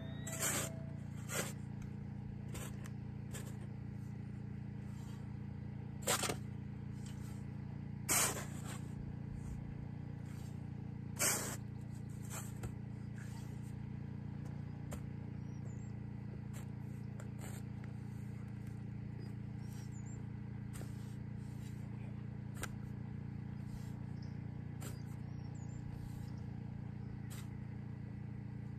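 Steel shovel scraping and chopping into loose sandy soil in irregular strokes, a few of them louder in the first half, over a steady low hum.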